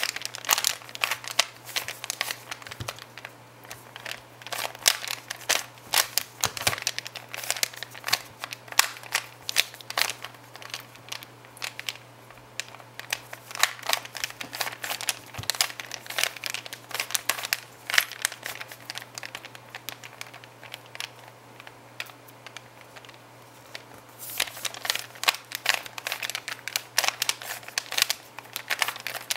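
Rubik's Cube being turned rapidly by hand during a speed solve: fast runs of plastic clicking and clacking as the layers rotate. The clicks thin out to a few scattered turns for several seconds about two-thirds of the way through, then pick up pace again near the end.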